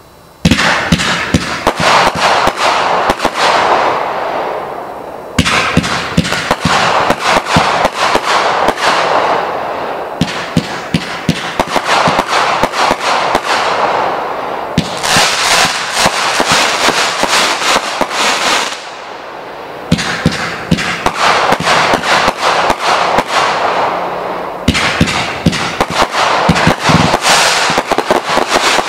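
500-gram consumer fireworks cake firing. It goes in six volleys of rapid, loud shots with crackling bursts, roughly five seconds apart; the first starts about half a second in, and each volley fades out before the next begins.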